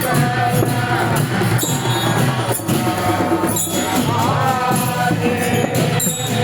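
Music: held, wavering melody notes over jingling, tambourine-like percussion and a steady low beat.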